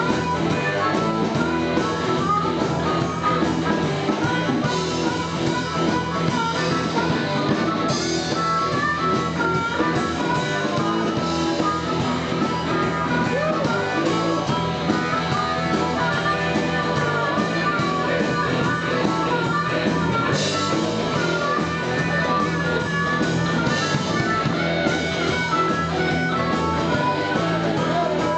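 Instrumental break in a blues-rock boogie song: guitar playing over the band with a steady, unbroken beat.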